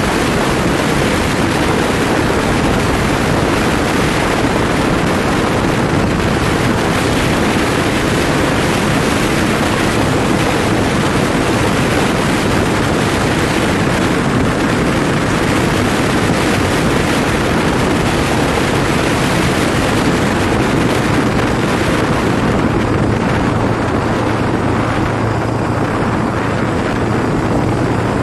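Wind rushing over the microphone on a moving motorcycle, over the steady running of the Tufan Istiqlal 250's engine. About 22 seconds in the wind eases and a low, steady engine hum comes through more clearly.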